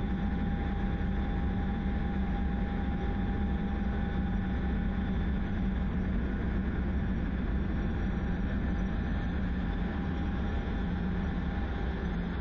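Steady engine and airflow noise inside the cockpit of an F/A-18 fighter jet in flight: an even low rumble with a faint high whine, unchanging throughout.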